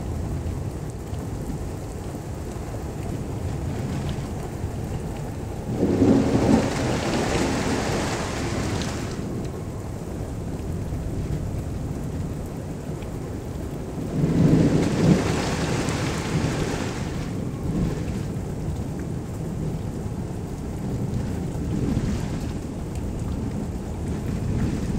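Thunderstorm: steady rain with rolling thunder, the thunder swelling louder twice, about six seconds in and again about fourteen seconds in.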